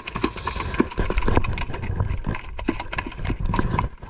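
Rapid, irregular knocks and thumps in a small boat, over a low rumble.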